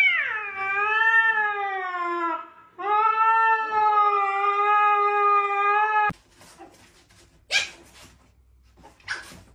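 A cat yowling in two long, drawn-out, wavering calls, the second lasting about three seconds and cutting off suddenly about six seconds in. Then two brief hissy noises.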